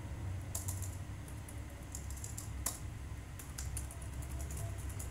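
Typing on a computer keyboard: irregular runs of key clicks, with one sharper click about halfway through, over a low steady hum.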